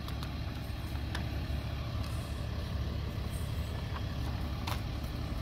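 Steady low background rumble, with a few faint ticks and a light rustle as the paper pages of an instruction manual are handled and turned.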